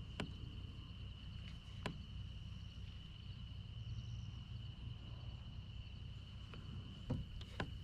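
Insects trilling in one steady high-pitched tone, with a few sharp clicks now and then over a low rumble.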